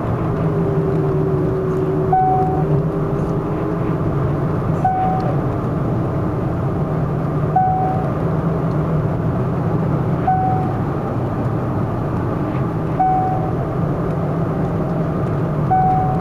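A 1999 Cadillac STS with its freshly rebuilt Northstar V8 running steadily, a continuous low engine and road hum. A short single-note chime with a click sounds at an even pace, about every two and three-quarter seconds.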